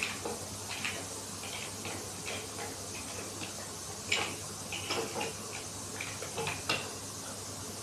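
Hand ratchet pipe-threading die at work on a 1/2 inch pipe: irregular metallic clicks and ticks as the handle is worked, over a steady background hiss.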